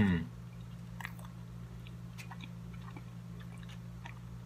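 A person chewing a mouthful of al pastor burrito, with faint scattered wet mouth clicks over a steady low hum.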